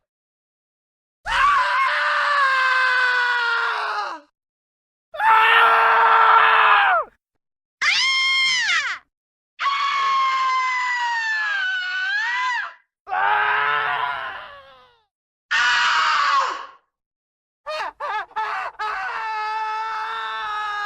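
A series of screams, one after another, each lasting one to three seconds with short silences between them. One about eight seconds in rises sharply in pitch; the last, near the end, starts after a few short clicks and is held steadily.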